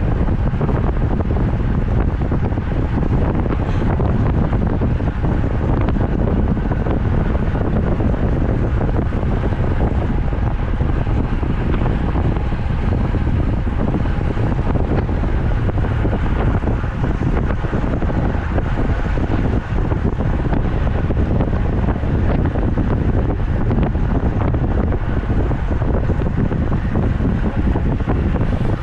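Loud, steady wind rushing over the microphone of a camera on a moving road bike, ridden in a strong wind.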